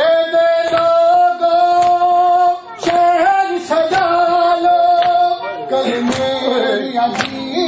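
A male noha reciter singing a Shia lament in long held notes that glide at the ends. Behind him come the regular slaps of matam, men beating their chests, about once a second.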